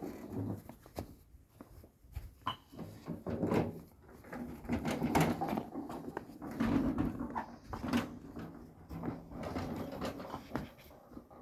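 Irregular knocks and clunks, one after another at uneven intervals.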